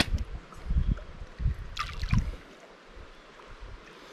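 Water splashing and sloshing in a river pool, with several low thumps on the microphone in the first couple of seconds and a short splash about two seconds in.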